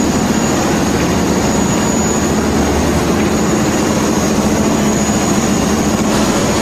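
A fishing boat's engine running steadily under way, a loud even drone with a constant low hum.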